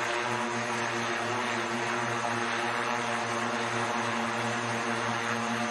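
SkyDrive SD-03 electric flying car hovering on its coaxial pairs of electric propellers: a steady multirotor hum of several held tones over an even hiss, with no change in pitch or level.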